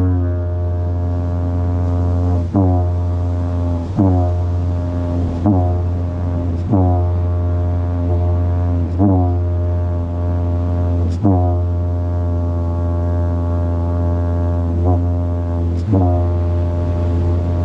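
Didgeridoo played in one long unbroken low drone, with short rhythmic accents and pitch bends every second or two, the player keeping it going with circular breathing.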